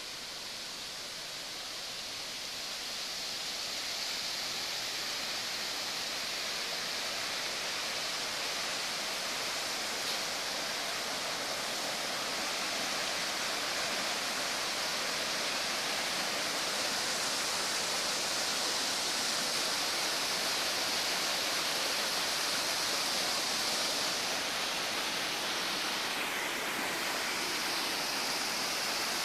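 Rushing water: a steady, even hiss that grows a little louder over the first few seconds.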